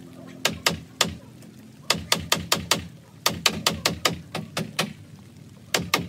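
Hammer blows driving nails into the wooden laths and rafters of a roof frame: sharp strikes in quick runs of several a second, with short pauses between runs.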